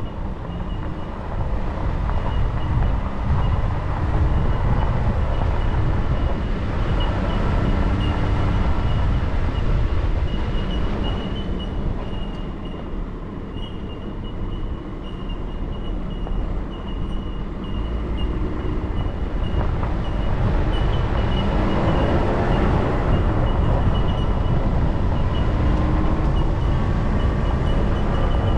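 A vehicle driving along an unsealed dirt road, with steady low tyre-and-road rumble and rattling. It eases off briefly in the middle, then picks up again.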